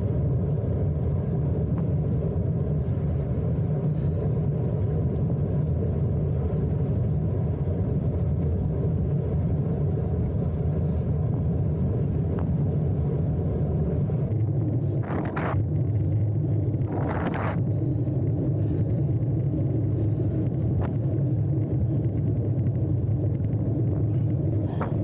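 Steady low wind rumble over the microphone of a camera mounted on a road bicycle riding at speed, with two brief louder bursts about fifteen and seventeen seconds in.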